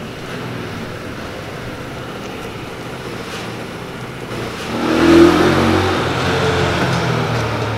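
A motor vehicle's engine over a steady outdoor rumble, swelling louder about five seconds in and staying up.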